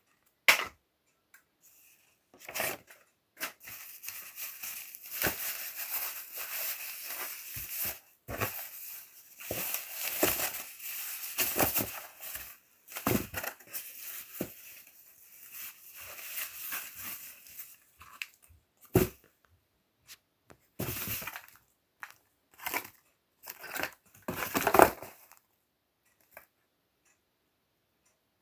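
Paper and plastic packaging rustling and crinkling as it is handled and pulled out of a box, near-continuous for a long stretch. Then come shorter separate bursts with a sharp knock or two, the loudest near the end.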